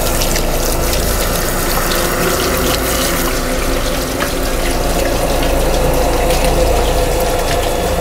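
Water running from a sink tap and splashing over hands being scrubbed, a steady hiss, with a low steady drone underneath.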